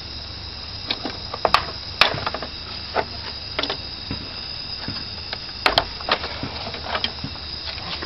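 Plastic clips on an upright vacuum cleaner's base snapping and clicking as its plastic bottom plate is unclipped and pulled off: scattered sharp clicks and knocks over a steady low background hum.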